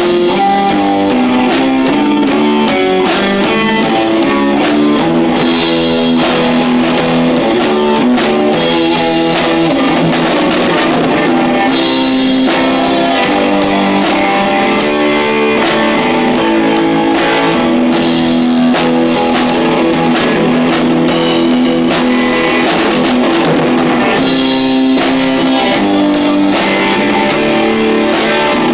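Rock band playing live: electric guitar, bass guitar and a Pearl drum kit together, with steady cymbal strokes over the guitar chords.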